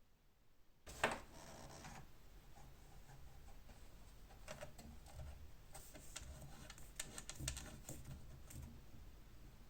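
Small metal lock parts being handled: a sharp knock about a second in, then scattered light clicks and taps over a low steady hum.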